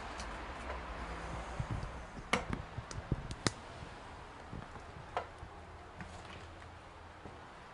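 Footsteps on loose debris and fire-damaged boards, a scattering of sharp clicks, cracks and snaps from about one and a half to five seconds in, over a steady low rumble.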